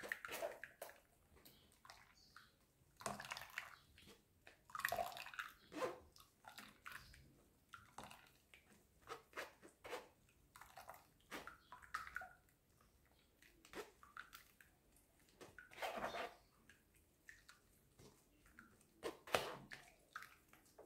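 A spoon pressing and scraping wet blended pineapple and ginger pulp in a plastic bowl to squeeze the juice out: faint wet squelches and short scrapes at irregular intervals.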